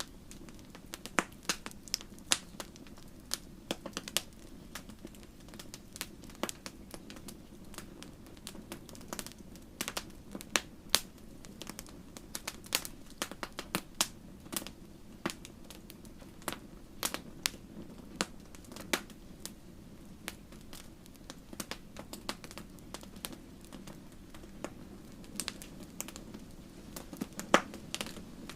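Wood fire burning in a fireplace: a steady low rush of flame with irregular sharp crackles and pops, several a second.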